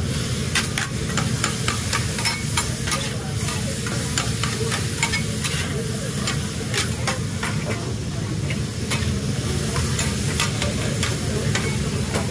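Sliced steak, onions and peppers sizzling on a steel flat-top griddle while two metal spatulas chop and scrape through them, with frequent irregular clicks of the blades striking the steel, over a steady low hum.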